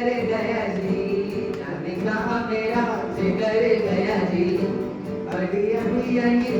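Music: a song with sung voices over instrumental accompaniment.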